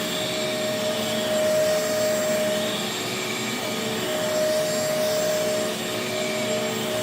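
Bissell DeepClean Professional Pet carpet cleaner running, its suction motor giving a steady drone with a constant whine as it is worked over the carpet.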